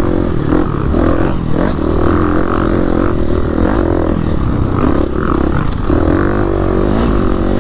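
2017 KTM 350 EXC-F's single-cylinder four-stroke engine revving up and down with the throttle on slippery ground. The revs rise and fall as the rear tyre scrabbles for grip, which the rider puts down to a worn back tyre.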